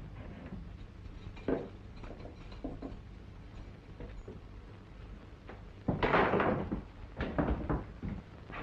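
Knocks at an iron-barred jail cell door, then a loud clatter about six seconds in, followed by several sharp knocks as men scuffle at the door.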